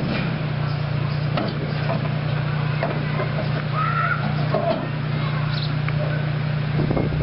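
Miniature passenger train running along its track, with a steady low drone from the locomotive and occasional clicks from the wheels and carriages. A short, higher-pitched squeal or cry comes about four seconds in.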